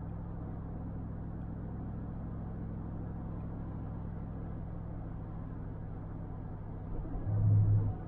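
Steady road and engine drone heard inside the cabin of a 2002 Chevrolet Avalanche while driving, with a brief louder low rumble about seven seconds in.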